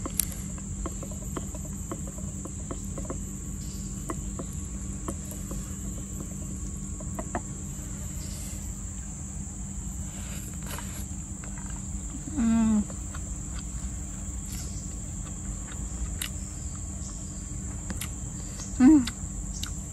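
Insects chirring in a steady high drone throughout, with faint small clicks. Two brief pitched voice-like sounds stand out, one about twelve seconds in and a louder one near the end.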